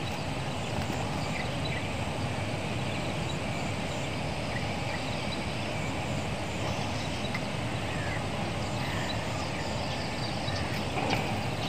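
Steady outdoor background noise with a low rumble throughout and a few faint, short high chirps.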